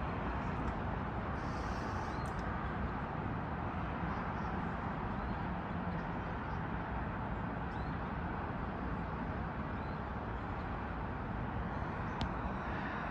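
Steady city ambience: a constant hum of distant traffic, with a few faint bird chirps and a single click near the end.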